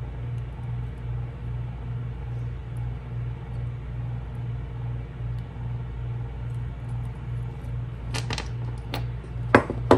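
A steady low hum with a slight regular pulse throughout, and a few sharp small clicks in the last two seconds: metal jump rings being worked with jewelry pliers.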